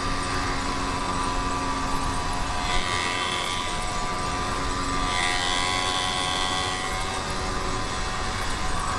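YD100 two-stroke motorized-bicycle engine running steadily while riding. A higher whine joins it twice, around three seconds and again around five seconds in.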